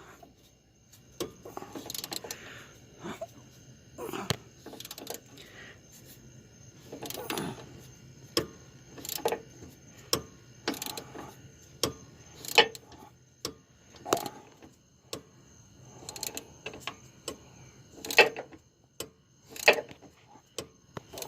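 Metal hand tools clinking and knocking against the truck's suspension parts as a nut on the control arm is worked tight, in irregular sharp clicks about every second or two.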